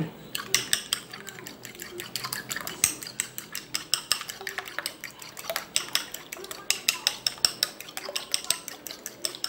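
A metal fork beating eggs and brown sugar in a ceramic bowl, clinking rapidly and unevenly against the bowl's sides.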